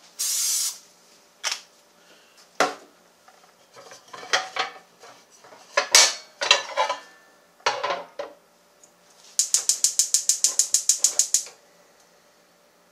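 Cooking spray hissing briefly from an aerosol can, then clanks and knocks of a bubble waffle maker being closed and set on a gas cooktop grate. About nine seconds in, a gas burner's igniter clicks rapidly, about ten clicks a second for some two seconds, until the burner lights.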